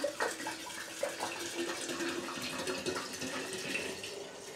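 Bourbon pouring from a glass bottle through a plastic funnel into a half-gallon glass mason jar of pecans, a steady run of liquid that tails off near the end as the bottle empties.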